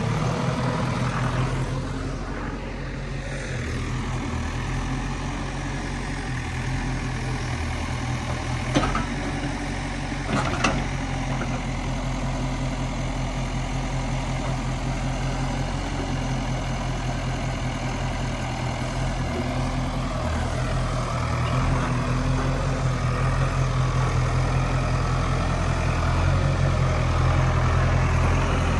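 Loader's diesel engine running steadily, with two sharp metallic knocks about nine and ten and a half seconds in; the engine grows louder over the last third.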